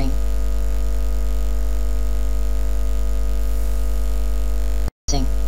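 A steady electronic drone of sustained low tones, heavy in the bass, that cuts out completely for a split second near the end.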